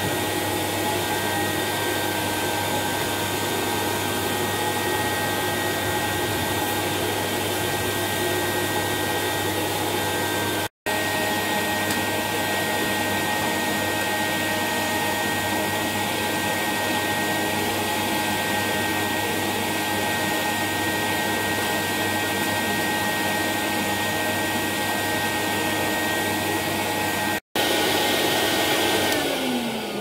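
Hoover Commercial tub vacuum cleaner running with a steady motor whine, broken twice by a brief silent gap. Near the end the motor winds down, its pitch falling.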